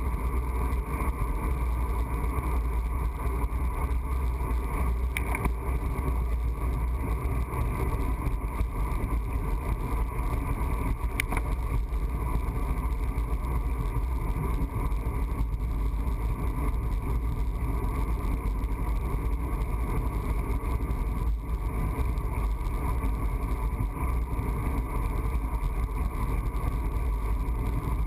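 Wind rushing over a handlebar-mounted camera's microphone as a road bicycle rides along at speed: a steady low rumble, with a couple of faint clicks.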